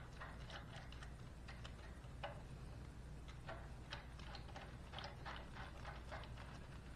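Faint, irregular light metallic clicks of a socket tool as a bolt is turned by hand into a motorcycle's forward-control mount, over a low steady hum.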